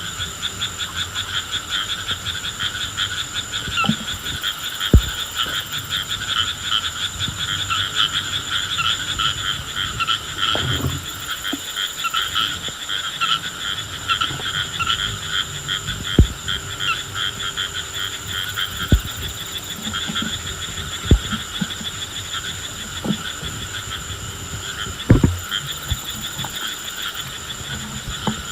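Frogs calling in a dense, continuous chorus of fast pulsed trills. A thin steady high tone sits above it, and several short dull thumps are scattered through.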